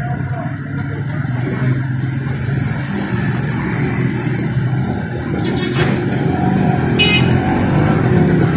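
An engine running steadily with a low drone that grows slightly louder, and a couple of sharp metallic clinks past the middle.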